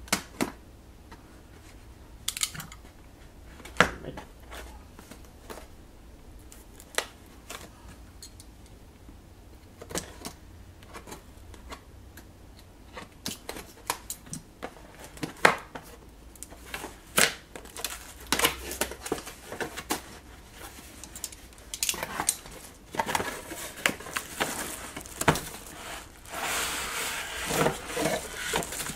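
A sealed cardboard box being opened: scattered clicks and scrapes as the packing tape is cut, then near the end a denser run of cardboard flaps and plastic wrap crinkling as the contents are lifted out.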